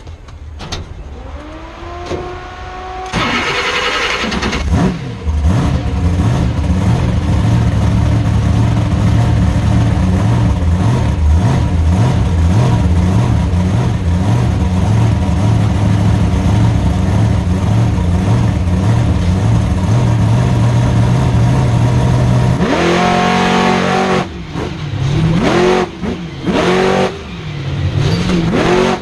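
Monster truck's V8 engine heard from inside the cab. It revs up in a few rising blips, then holds a loud, steady high note for a long stretch. Near the end it revs hard in rising surges that cut off sharply several times.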